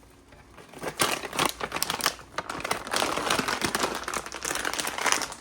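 Packaging crinkling and rustling as it is handled: a dense run of small crackles starting about a second in and stopping just before the end.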